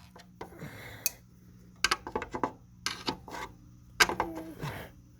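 Metal hand tools and hardware clinking and rattling in several short bursts, with some rustling handling near the start. A faint steady low hum runs underneath.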